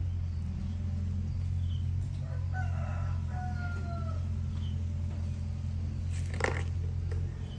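A rooster crowing once, a drawn-out call with a slightly falling tone about three seconds in, over a steady low hum. A short sharp sound comes about six and a half seconds in.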